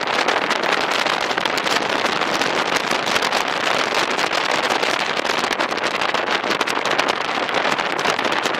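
Steady rush of wind and road noise from a moving vehicle, with wind buffeting the microphone.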